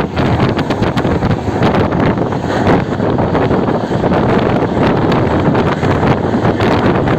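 A passenger train running at speed, heard from on board, with heavy wind buffeting the phone's microphone. The noise is loud and steady, with faint irregular clicks.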